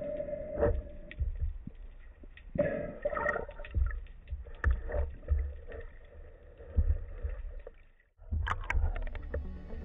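Underwater sound heard through a camera housing near the surface: a low rumble of moving water with irregular knocks and bumps, and a muffled tone about three seconds in. The sound cuts out briefly near the end.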